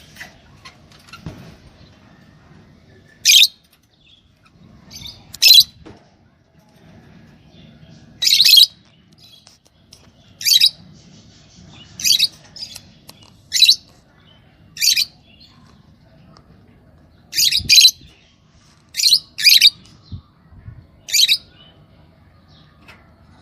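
Lovebird giving about a dozen short, shrill, high-pitched calls, one every second or two, some in quick pairs.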